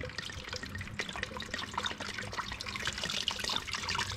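Antifreeze trickling and splashing from the quad bike's disconnected radiator hose into a bucket, a steady uneven dribble full of small drips. The radiator cap is still closed, which keeps the flow slow.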